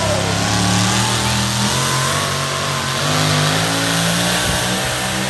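Supercharged engine of a Ford Super Duty pulling truck running loud at the start of a pull, its revs rising and falling.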